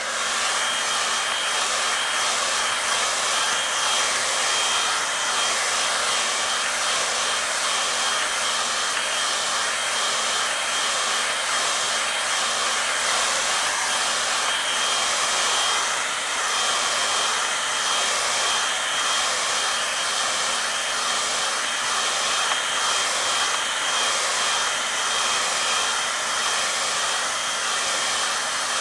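Hand-held hair dryer blowing steadily on a wet watercolour painting to dry the paint: a continuous rush of air with a thin, steady high whine, wavering slightly as it is moved over the paper.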